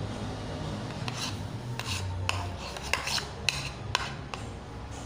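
A utensil scraping and clicking against a bowl as a thick, sticky slime mixture is stirred, in irregular strokes.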